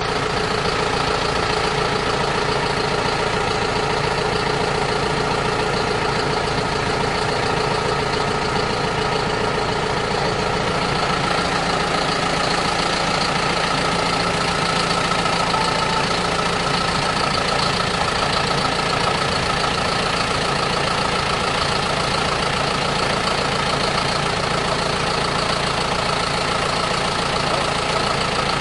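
Farm tractor's diesel engine idling steadily, the same even note with no revving or change in pitch.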